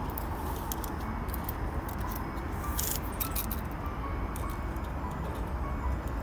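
Steel tape measure blade being drawn out of its case, with a series of light metallic clicks and rattles over a steady low background rumble.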